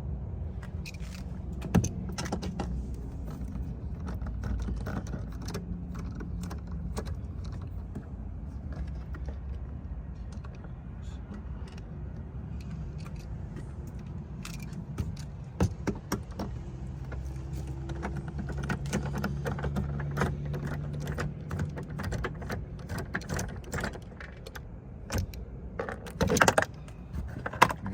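Metal hand tools clinking and rattling, a socket and ratchet being handled, with many scattered sharp clicks that are densest near the end, over a low steady hum.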